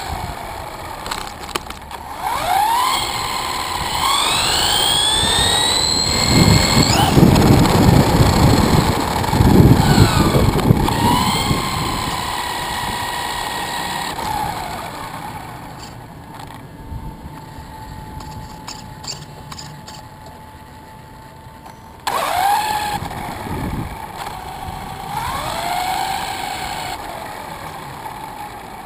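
Brushless electric motor and drivetrain of an Axial EXO RC buggy (Tekin RX8 ESC, 4600 kV four-pole motor on a 3S battery) whining, its pitch rising and falling as the throttle is punched and released. Tyre and wind rumble from the camera on the buggy's roof is loudest during the bursts of speed several seconds in and quiets for a stretch in the middle.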